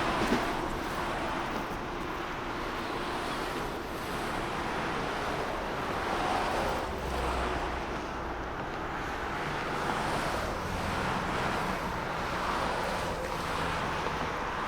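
Road traffic: a steady wash of tyre and engine noise from cars passing by, swelling and fading every few seconds as vehicles go past.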